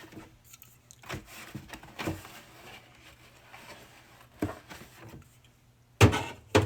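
Cans of pop being set down one after another on a fridge shelf: a few light knocks, then two louder ones near the end.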